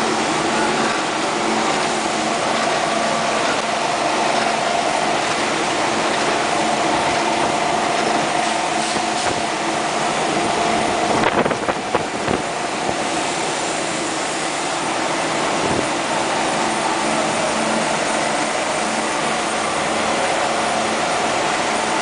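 Rockwool pipe outer-diameter grinding machine running, a loud, steady mechanical whir with a constant tone in it. A few sharp knocks come about halfway through.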